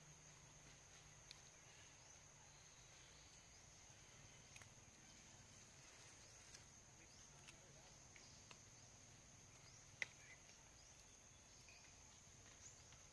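Near silence: a faint, steady high-pitched insect drone, with a few faint short clicks scattered through it, the sharpest about ten seconds in.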